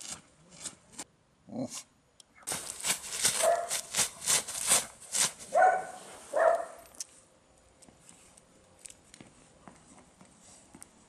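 A husky-type dog gives a few short barks in the middle, three of them close together, amid close rustling and scuffing noise; after that only faint ticks remain.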